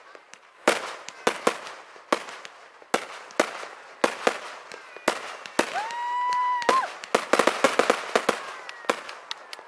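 Fireworks display: aerial shells bursting in a series of sharp bangs, with a steady high whistle lasting about a second near the middle, followed by a fast run of crackling pops.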